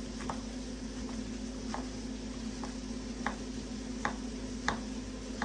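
Kitchen knife slicing a zucchini into rounds on a wooden cutting board: a short sharp knock each time the blade meets the board, about seven in all at an uneven pace, over a steady hum.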